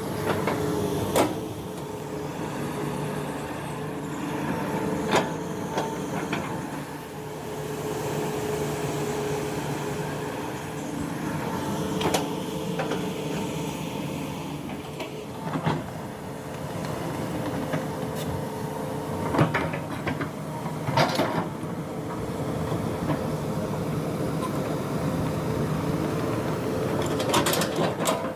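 Hydraulic excavator (Hitachi Zaxis) with its diesel engine running steadily while it works, with sharp knocks and clanks every few seconds, several in quick succession near the end.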